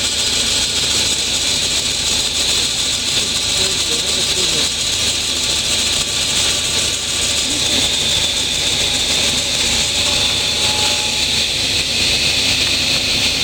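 Table saw running steadily: a loud, even machine noise with a strong high hiss that holds without a break.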